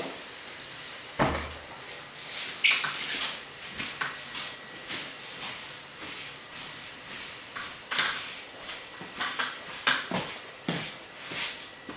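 Scattered clicks and knocks of a curtain track and its connector parts being handled and screwed together, with one heavier thump about a second in.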